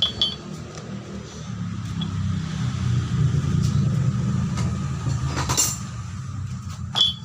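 A steady low rumble, with metal compressor parts clinking sharply three times: at the start, about five and a half seconds in, and near the end.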